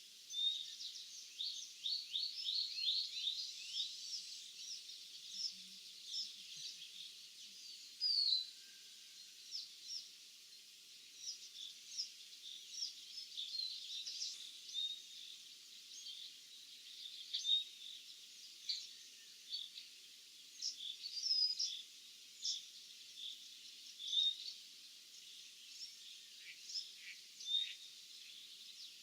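Small birds chirping and singing in an open field, with many short high chirps and quick trills coming all the way through, over a faint steady background hiss.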